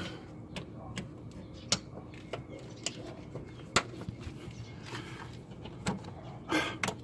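Irregular light clicks and taps of car parts and plastic pieces being handled, about a dozen sharp ticks spread unevenly, one louder knock near the middle.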